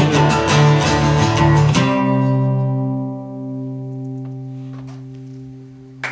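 Acoustic guitar strummed rhythmically, then a final chord about two seconds in that is left to ring out and slowly fades: the closing chord of the song.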